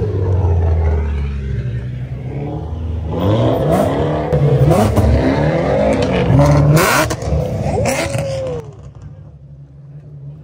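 Car engine idling, then revved hard over and over, its pitch sweeping up and falling back many times in quick succession; the revving cuts off abruptly near the end, leaving a low steady idle.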